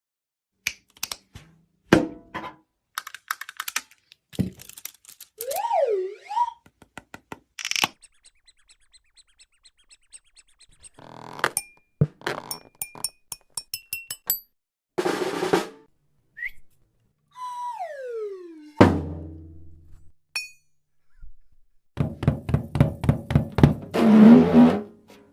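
A quick string of cartoon sound effects: sharp knocks and clicks, a whistle swooping up and down, a long falling whistle that ends in a low heavy hit, and a fast run of drum strikes near the end.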